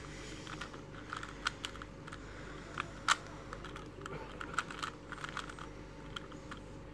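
A 3x3 Rubik's cube being turned by hand, its plastic layers clicking and clacking in quick, irregular twists as a second-layer edge-insertion algorithm is run. One clack about three seconds in is louder than the rest.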